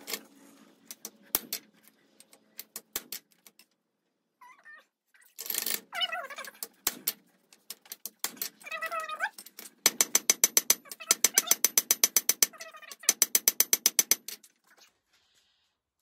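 Hand hammer striking the guillotine tool on the anvil to shoulder a red-hot round bar, in two fast, even runs of ringing blows in the second half, with scattered lighter taps early on. A cat meows twice in between.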